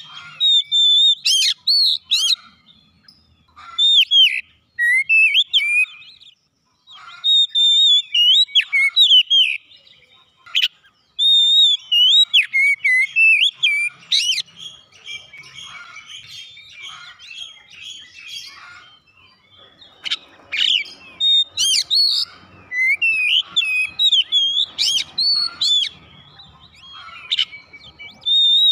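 Oriental magpie-robin (kacer) singing: loud, varied whistled phrases of quick rising and falling notes and chirps, in bursts broken by short pauses.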